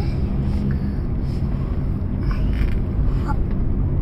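Steady low rumble of a Proton Saga's engine and tyres, heard from inside the cabin while driving in traffic.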